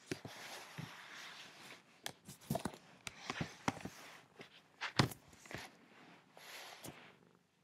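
Camera handling noise: several stretches of rustling hiss broken by scattered sharp clicks and knocks, the loudest about five seconds in.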